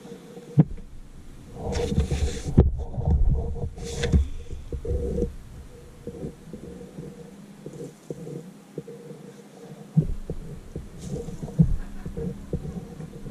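Irregular low thumps and rumbling: knocks carried through the wooden board as a pen draws on paper laid on it. The thumps are densest in the first few seconds and come back singly near the end, over a faint steady hum.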